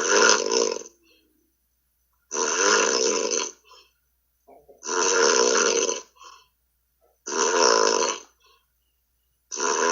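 A man snoring, heard over a Skype call on a phone: a snore of about a second roughly every two and a half seconds, five in all.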